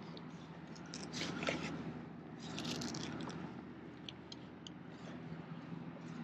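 Handling noise of a spotted bay bass being laid and held on a fish-measuring board: short scrapes and rustles about a second in and again a little before the middle, then a few light ticks.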